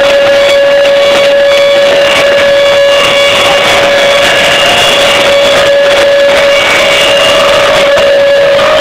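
Football stadium crowd din as the team comes out, loud and unbroken, with one steady held tone throughout and shorter higher tones overlapping on top.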